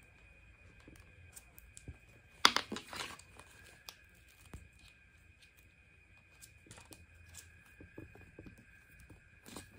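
Small clicks and rustles of hands handling and fitting a watch strap, with a short ripping noise about two and a half seconds in, over a faint steady high-pitched hum.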